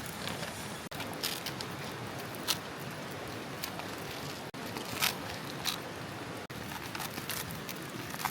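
Steady rain hiss with heavier drops tapping irregularly, a sharp tap every second or so.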